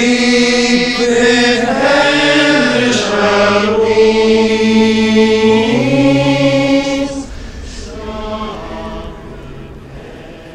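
Men's voices singing a slow Christmas carol together in long held notes, fading away about seven seconds in.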